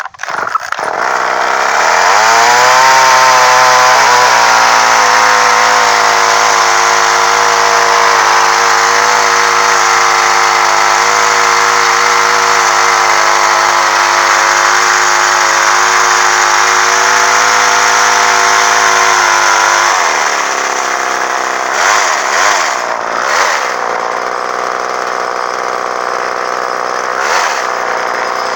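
Poulan Micro Pro Super XXV Deluxe two-stroke chainsaw engine catching from a pull and revving up, then running fast and steady for most of the time. Its tone changes about two-thirds of the way through, to a rougher, slightly quieter running with a few brief revs. The saw is running with its idle screw turned up, because it will not idle.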